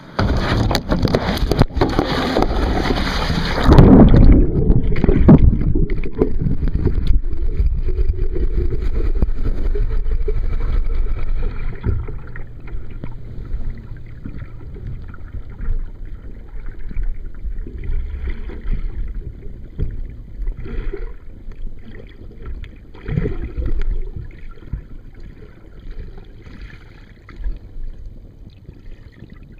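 Loud rumbling and knocking on the camera's microphone that starts suddenly and is loudest about four seconds in, as the camera is handled and covered. After about twelve seconds it drops to a quieter, muffled low rumble with scattered knocks.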